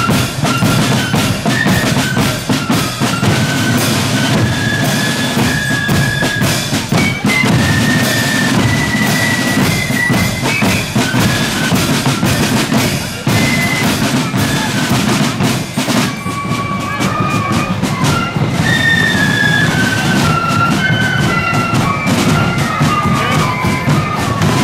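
Marching flute band playing a tune: the flutes carry a single high melody over side drums and a steady drum beat.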